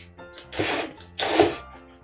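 Two short coughs, about three-quarters of a second apart, over background music.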